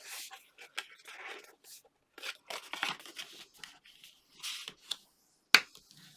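White card stock being folded along its score lines and creased by hand, giving irregular crackling and rustling, with one sharp click near the end.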